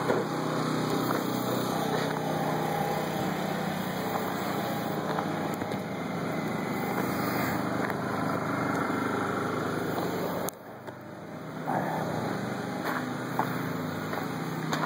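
A small engine running steadily at a constant speed. The sound drops away sharply for about a second, about ten and a half seconds in, then comes back.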